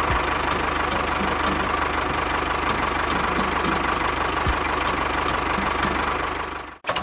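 Tractor engine running steadily with a regular knocking chug, dropping out abruptly just before the end and then carrying on.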